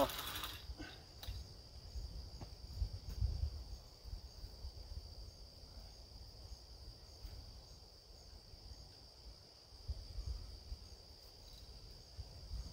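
Steady high chirring of insects, with a low rumble underneath and a few faint knocks.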